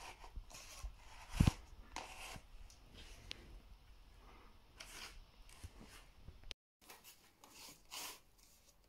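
Handling noise from a cardboard replica Mosin-Nagant rifle: irregular rustling, scraping and light tapping of cardboard as it is gripped and its bolt is worked, with a dull knock about one and a half seconds in. The sound cuts out briefly about two-thirds of the way through.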